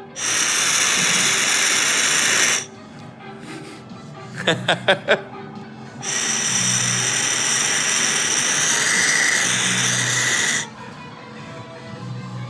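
Two long pulls of air drawn by mouth through a small glass dab rig, each a steady airy hiss with a faint whistle; the second pull, starting about halfway through, lasts nearly twice as long as the first.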